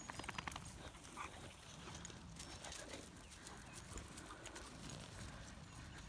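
Faint footfalls and scattered soft clicks on wet, rough grass, with a cluster of quick clicks at the start and a low steady rumble underneath.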